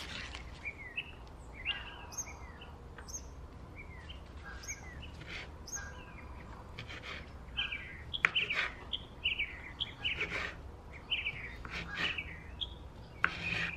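Small birds chirping over and over in short, quick calls. In the second half, a few sharp knife strokes cut through a smoked sausage onto a wooden cutting board; the loudest comes at about eight seconds.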